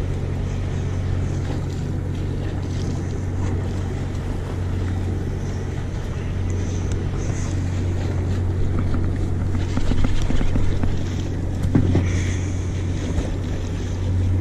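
Fishing boat's engine running with a steady low drone, with wind buffeting the microphone. A brief knock near the end.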